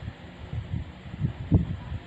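Handling noise: soft, irregular low thumps and rustles as fingers turn a small plastic-and-metal miniature telephone model over, with one louder thump about one and a half seconds in.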